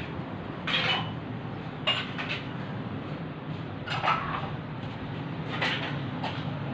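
Short metallic clinks and clatters, about five of them a second or so apart, some with a brief ringing tone, over a faint low hum.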